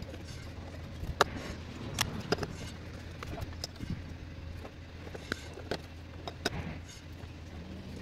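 Scattered sharp clicks and light knocks as a plastic intake sensor and its wiring connector are handled and fitted onto an engine's air intake duct, over a steady low hum.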